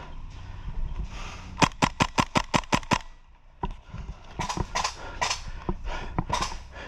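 Airsoft gun firing a quick string of about eight sharp semi-automatic shots, roughly six a second, followed by a few scattered softer clicks.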